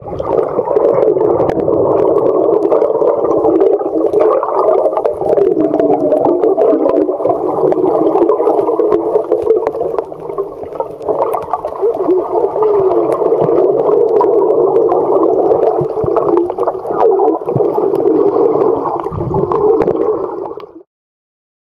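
Loud, muffled underwater sound of children swimming in a pool: a steady gurgling wash of water movement and bubbles picked up by a camera under the water. It cuts off suddenly near the end.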